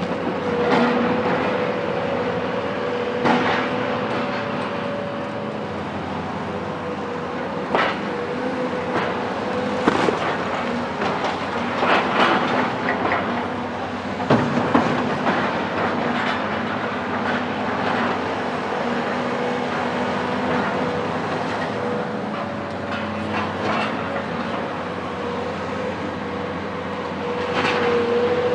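Caterpillar 374 excavator's C15 ACERT diesel running steadily under load, with irregular sharp cracks and crashes of concrete and debris breaking and falling during demolition.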